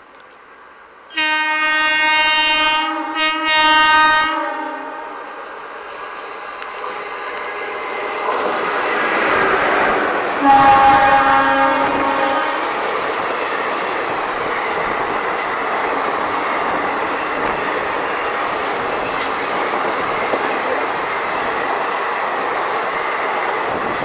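WAP-4 electric locomotive's air horn sounding near the start in two blasts with a short break, while the train's rumble grows as it approaches at speed. A second horn blast comes about ten seconds in as it passes, followed by the steady rush and clickety-clack of the parcel vans running by close.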